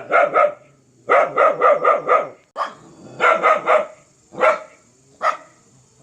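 A dog barking in rapid volleys of several quick barks in a row, ending with two single barks, the sound of a fierce dog.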